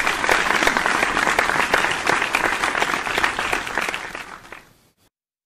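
Applause: many hands clapping together, dying away near the end and stopping about five seconds in.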